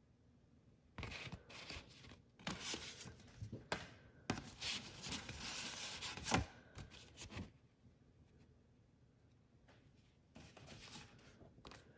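Stiff paper card and paper envelope rustling and scraping as they are handled, in irregular bursts that start about a second in, pause for a couple of seconds, and start again near the end.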